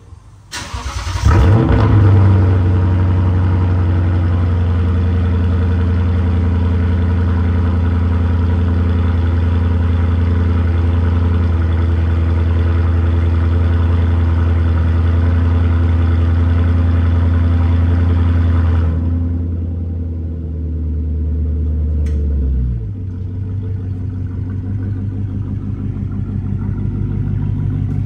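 Lexus GS F's 5.0-litre V8 with an aftermarket Meisterschaft cat-back exhaust starting about a second in with a brief rev flare, then idling steadily. Near the end the idle note falls lower and quieter as the car pulls forward.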